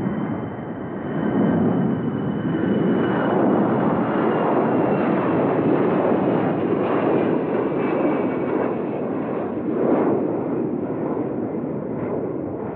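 Xian Y-20 four-engine military transport climbing out after takeoff, its jet engines giving a loud, steady roar. A faint high whine sits over the roar at first and fades within a few seconds.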